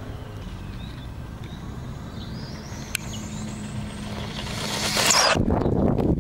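Electric motor of an LRP Shark 18 RC car whining and climbing in pitch as the car speeds up toward the camera, loudest as it passes close about five seconds in. After a cut, loud rustling and knocking handling noise follows near the end.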